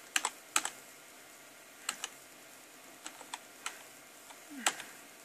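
Separate key presses on a computer keyboard, about a dozen short clicks spread unevenly, several in quick pairs. They step the cursor down a text-mode menu.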